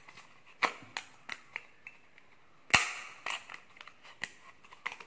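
Sharp plastic clicks and knocks from a bush cutter's nylon-line trimmer head being handled and fitted together: the spool, with its spring, is pushed and turned in the plastic housing. One loud snap comes nearly three seconds in, with several lighter ticks around it.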